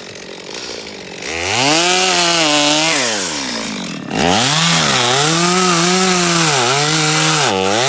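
Stihl chainsaw cutting into a poplar trunk. It revs up about a second in, and its pitch sags and recovers as the chain bites into the wood. It falls away briefly past the middle, then runs at full throttle again with short dips.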